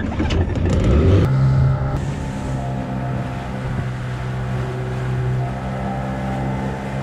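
Small Mercury outboard motor pull-started and catching in about the first second, then running steadily at an even pitch with the boat under way.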